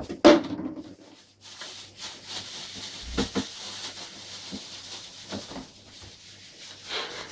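A cat moving about inside an open refrigerator: a loud knock about a third of a second in, then scattered light knocks and rustling, over a faint steady hum.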